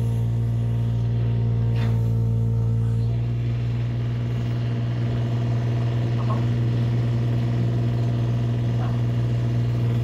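Amphibious excavator's diesel engine running steadily, heard from inside the operator's cab, with a few faint knocks along the way.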